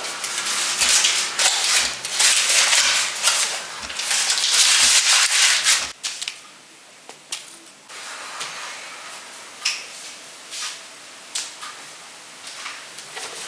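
Hurried rustling, crumpling and scraping of paper with scattered thumps as things are rummaged through and tossed aside. About six seconds in it drops suddenly to quieter, scattered clicks and rustles.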